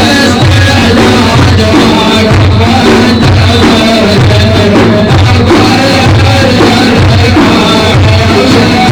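Music from a madih praise song: loud, steady music with a regular drum beat and repeating bass notes.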